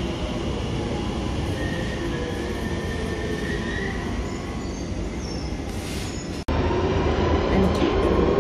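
London Underground Central line train running, with a steady rumble of wheels on rail and a motor whine rising in pitch as it gathers speed. About two-thirds of the way in the sound cuts abruptly to inside the carriage, where the same running noise and rising whine are louder.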